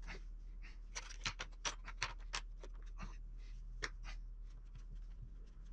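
Irregular light clicks, taps and scratches of small sculpting tools and materials being handled on a workbench, busiest in the first couple of seconds, over a low steady hum.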